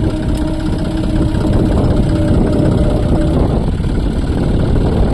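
Diesel engines of two John Deere tractors hitched together, running steadily. A steady tone rides over the engine noise for about the first three seconds, then stops.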